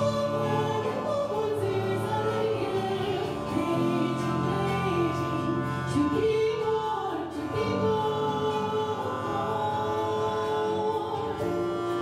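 A woman singing in an operatic style over a long-string harp, whose hand-stroked strings ring on in many steady, sustained tones beneath the moving voice.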